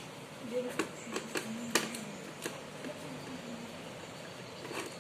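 A series of short, sharp clicks and taps, clustered in the first half with one more near the end: plastic casing and parts of an HP all-in-one PC being pried and handled during disassembly. Faint murmuring voices underneath.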